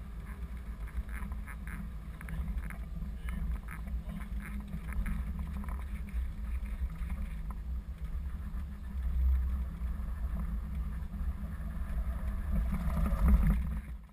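Cab interior noise of an articulated truck braking hard to a stop on a wet road: a steady low rumble of engine and tyres, with a run of sharp clicks through the first half and the loudest surge near the end.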